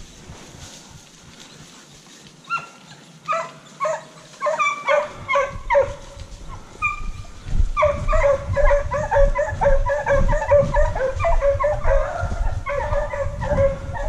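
A pack of hunting hounds baying while working a wild boar's scent: a few scattered yelps about two seconds in, then, about halfway through, a near-continuous chorus of overlapping cries.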